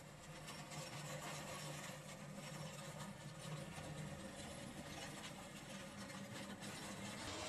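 Tractor engine running steadily while a rear-mounted Kellfri 27070S dozer blade with a toothed steel edge scrapes packed snow off the road surface, giving a continuous scraping hiss over the engine's low hum.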